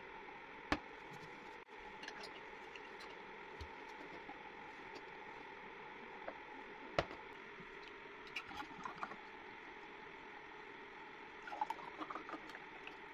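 Glass bottles handled on a wooden table, with two sharp knocks, then thick mango juice poured from a bottle into a stemmed glass near the end, over a faint steady hiss.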